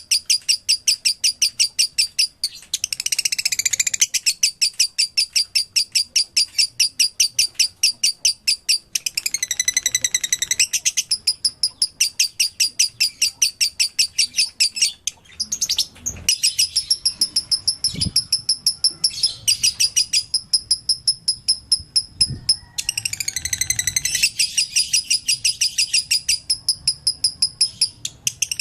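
Pet lovebird chirping rapidly: a long run of high chirps at about four a second, broken several times by buzzier, chattering stretches.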